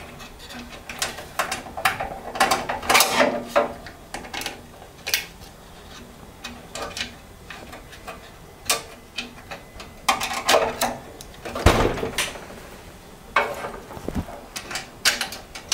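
Screwdriver driving the screw that fastens a graphics card's bracket to a PC case: irregular metallic clicks and scrapes as the screw is tightened.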